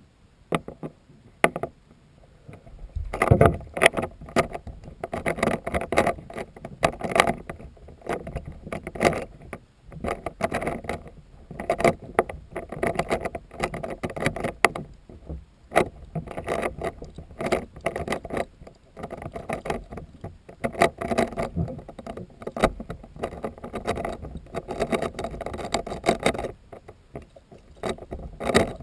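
Bathtub water sloshing and splashing around a Rubik's brand cube being solved underwater, with the cube's turns clattering. It starts with scattered ticks and a loud splash about three seconds in, then stays busy and uneven.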